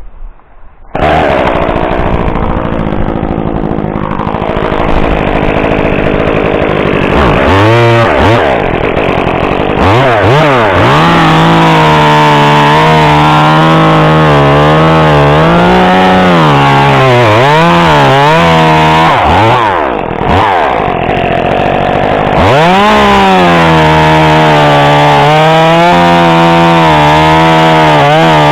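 Echo CS-2511T top-handle two-stroke chainsaw starting up about a second in and revving in short blips. It then runs at full throttle cutting through pine wood, its pitch sagging and recovering under load, with a brief drop in revs about twenty seconds in.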